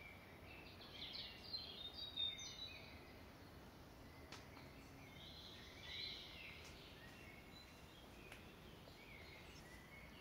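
Faint birdsong: bursts of high chirping phrases about a second in, around the middle and near the end, over steady outdoor hiss.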